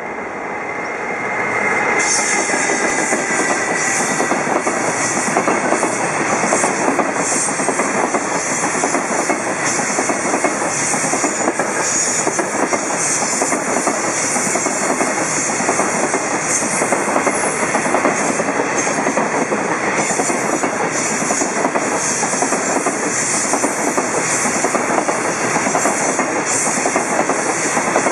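Long freight train of container wagons, hauled by a JR Freight EF210 electric locomotive, running past at speed: the rumble rises over the first two seconds as the train arrives, then holds as a steady loud rolling of wheels clattering on the rails.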